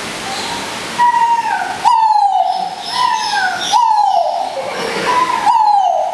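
Male peacock giving a series of loud, wailing calls, about one a second. Each starts high and slides down in pitch.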